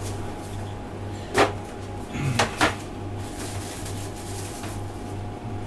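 An under-counter cabinet door knocks once, then twice more in quick succession a second later, over a steady low hum.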